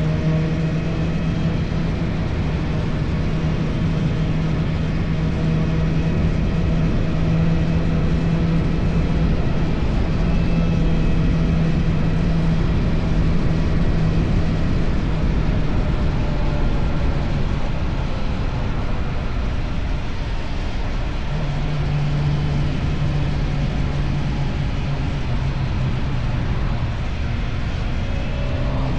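Motorcycle engine through an Akrapovic exhaust, cruising at steady revs under a rush of wind and road noise. The engine note eases off about two-thirds of the way through, picks up again, and begins to rise right at the end.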